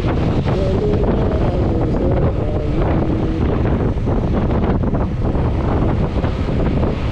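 Wind buffeting the microphone of a moving vehicle, with road and engine noise underneath. Faint wavering tones come through early on and fade by about three and a half seconds in.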